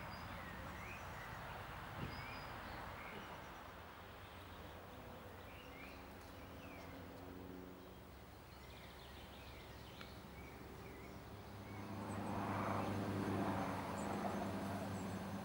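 Birds chirping over a low steady hum; about twelve seconds in, an engine swells up and passes, the loudest sound here.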